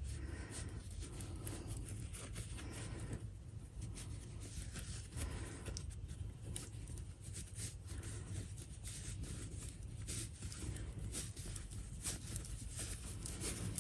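Faint, irregular rustling and scratching of cotton fabric rubbing on itself and on a pencil as a sewn doll body is worked down over the pencil to turn it right side out.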